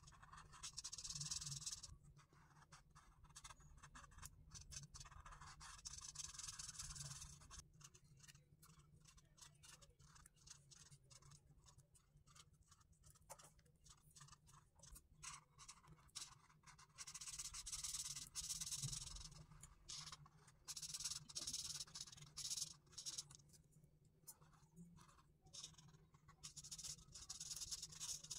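Faint scratching of a Touch alcohol marker's felt tip on paper as it colours in. It comes in runs of quick back-and-forth strokes with short pauses between them.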